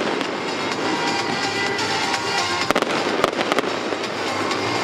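Aerial fireworks bursting, with a rapid cluster of sharp bangs about three seconds in, over loud music from the show's soundtrack.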